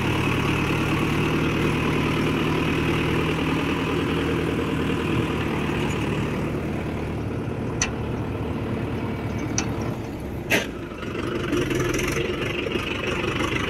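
Four-wheel-drive farm tractor's diesel engine running steadily as it pulls through mud. It eases off about seven seconds in and picks up again near the end. A few sharp clicks come around eight and nine and a half seconds in, and a louder knock at about ten and a half seconds.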